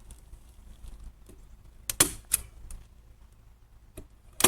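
Staple gun firing staples into pallet wood: a few sharp snaps, a pair about two seconds in and another pair near the end.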